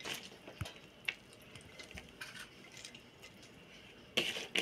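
Shredded red cabbage, wet with grape vinegar, lemon and salt, rustling and squishing as it is scooped by hand into a glass jar, with scattered light clicks and a louder rustle about four seconds in.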